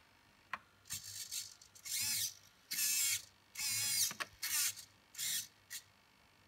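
Hobby servo motors in an InMoov robot head moving the eyes up and down. They whine in about seven short bursts of roughly half a second each, some sliding in pitch, with a couple of sharp clicks.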